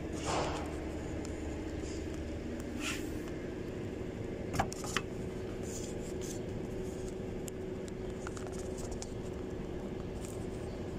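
A steady low mechanical hum with a few fixed tones, broken by a short rustle near the start and two sharp clicks about four and a half and five seconds in.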